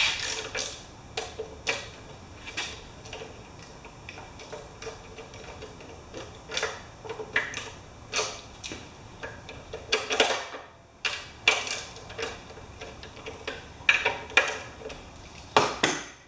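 Irregular metallic clicks, taps and clinks of hand tools and bolts being fitted into a lawn mower's engine cover, with a louder knock about ten seconds in.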